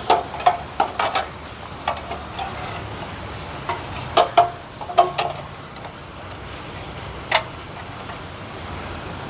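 Sharp metal clicks and knocks of a butane cassette canister being handled into the steel housing of a Naturehike cassette gas stove, scattered irregularly. One clear click comes about seven seconds in as the new canister snaps into place on the stove's coupling.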